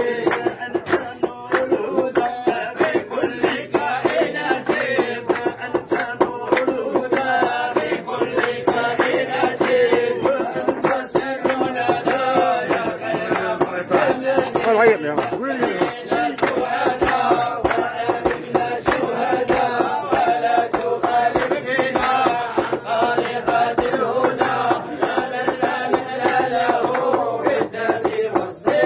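Men's voices singing madih, devotional praise chant for the Prophet, in a Sufi dhikr, over a quick steady beat of sharp strokes.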